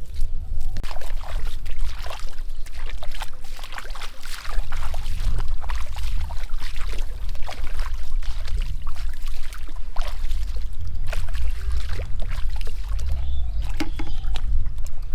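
Water splashing and trickling in many short, irregular strikes over a steady low rumble.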